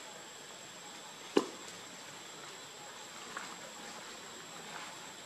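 Low steady background hiss with a thin, high-pitched whine held throughout, broken by one sharp knock about a second and a half in.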